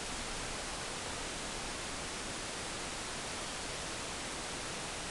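Steady, even hiss with no distinct sounds standing out of it.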